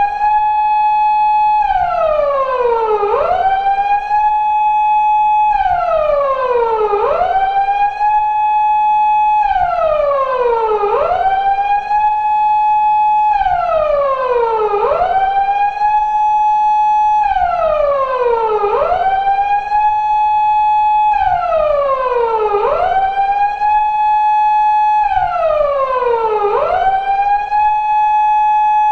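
Japanese police car siren of the kind fitted to 170- and 180-series Toyota Crown patrol cars, wailing in a steady four-second cycle. Each cycle rises quickly, holds a high note for about a second, then slides slowly back down before rising again.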